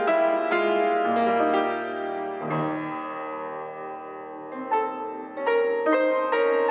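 Solo grand piano playing: a steady stream of struck notes, easing into softer held chords in the middle and picking up again after about five seconds.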